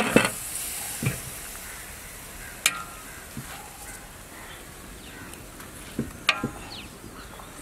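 A whole roast goat sizzling in a large aluminium idli steamer pot as it is turned and handled, with a high hiss strongest at the start. Two sharp metallic clinks on the pot come a few seconds apart.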